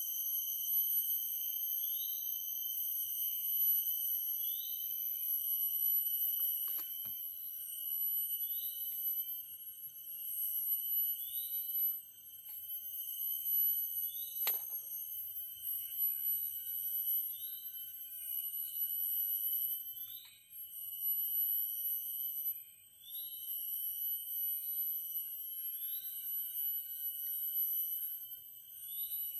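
Steady, high-pitched insect drone, one whining tone with overtones, joined every couple of seconds by a short rising chirp. There are two faint clicks partway through.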